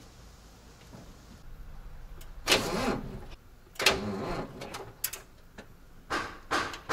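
Volvo FH truck's starter trying to crank the engine in two short attempts, followed by a quick run of sharp clicks; the engine does not catch because the batteries are run down.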